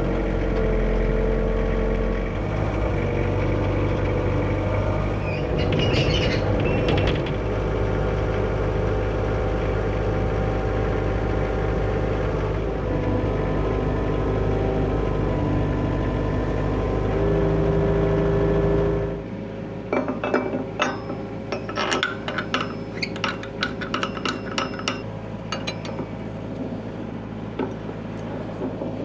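John Deere excavator's diesel engine running after a cold start, steady with small shifts in pitch. About 19 seconds in, the engine sound drops much quieter, and a string of sharp metallic clinks and clicks follows.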